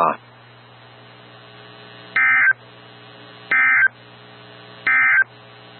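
Emergency Alert System end-of-message (EOM) code: three short, identical bursts of digital data tone about 1.3 seconds apart, marking the end of a NOAA Weather Radio warning broadcast. A steady low hum from the weather radio runs underneath.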